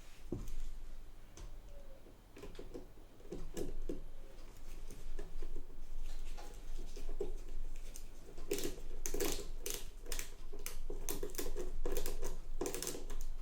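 Screwdriver turning a screw into a Facit ESA-0 calculator: repeated metal clicks and scrapes. They are sparse at first and come thick and fast in the second half.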